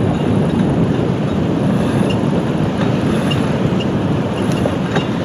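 Steady rushing rumble of a motorboat under way, its engine noise mixed with wind and water noise.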